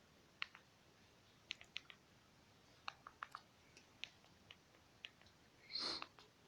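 Keys on the Lenovo A588T flip phone's physical keypad being pressed while typing a message: about a dozen light, irregular clicks, some in quick pairs. Near the end there is a short breathy hiss.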